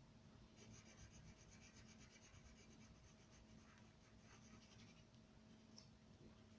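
Wax crayon rubbing on paper in quick back-and-forth colouring strokes, faint. The strokes start about half a second in, run densely until about five seconds, then thin to a few scattered scrapes.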